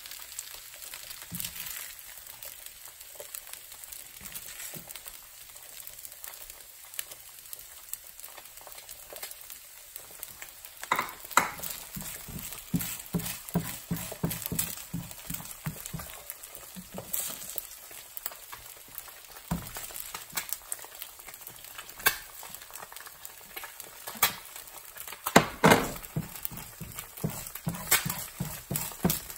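Steady sizzle of food frying in nonstick pans, with a silicone spatula scooping and scraping fried rice out of a frying pan. From about a third of the way in, the spatula makes a run of short sharp scrapes and knocks against the pan, the loudest near the end.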